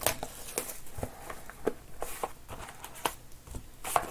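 Scattered light clicks and rustles of cardboard card boxes and foil packs being handled and opened.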